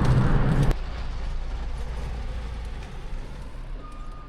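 Low, steady road rumble of wind and traffic noise. It is loud at first, drops sharply under a second in, and then fades gradually.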